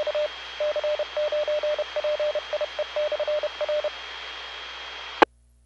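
A 2-metre amateur radio repeater sending its Morse code ID: a run of short and long beeps on one mid-pitched tone over the carrier's steady hiss, ending about four seconds in. Just past five seconds a click as the repeater drops its carrier, and the hiss cuts off.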